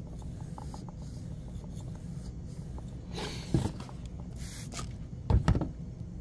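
Spyderco Para 2 Wharncliffe blade stroked by hand across a sharpening stone: faint scraping and small ticks over a steady low hum. A louder swish and knock come about three and a half seconds in, and the loudest sound is two or three heavy handling knocks near the end.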